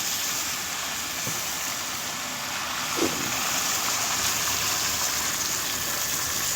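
Steady rushing of water, with one short knock about three seconds in.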